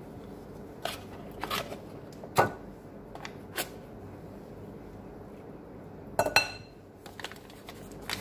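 A metal knife and a block of butter handled over a glass mixing bowl as half the block is cut off into it: scattered clicks and knocks, the loudest about two and a half seconds in, and a quick cluster of clinks with a short ring a little after six seconds as the knife meets the glass bowl.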